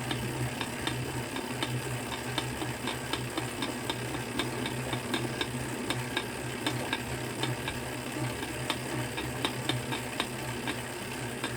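Tacx bike trainer being pedalled, its axle giving a run of irregular cracking clicks, about two to three a second, over a steady low running hum. The narrator puts the cracking down to a possible lack of grease on the spacer or cassette body in the trainer axle.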